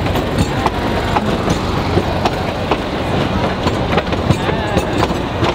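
Narrow-gauge passenger coaches rolling past, their wheels clicking and knocking over the track at irregular intervals, a few times a second, over a steady rumble.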